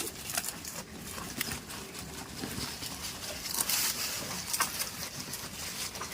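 Goats moving about: scattered rustles, clicks and knocks, a little louder about three and a half seconds in.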